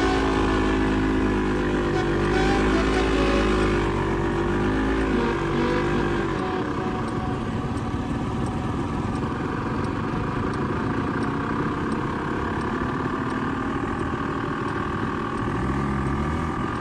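ATV (quad bike) engine running as it is ridden, its pitch rising and falling over the first six seconds or so, then a noisier, slightly quieter stretch.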